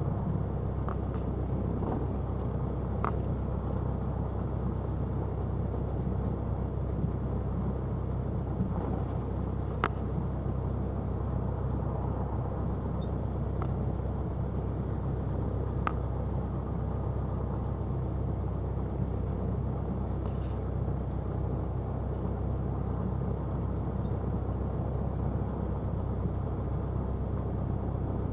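Cessna 172's engine and propeller running at low taxi power, a steady drone, with a few brief clicks along the way.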